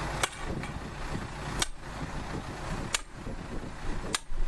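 Butane torch hissing steadily as it heats the side of a PVC pull box to soften the plastic, with four sharp clicks evenly spaced about a second and a half apart.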